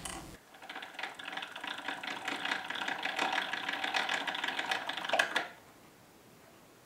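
Gravity-powered wooden automaton running through one cycle: its chain-driven gear train clatters in a fast, even stream of ticks while the brass fly fan spins to govern the speed. A little after five seconds it stops with a click as the lever drops into the notch in the wheel.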